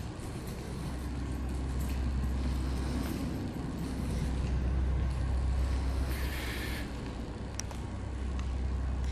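Steady low droning hum of background machinery in a hangar, with a short hiss about six seconds in and a sharp click shortly after.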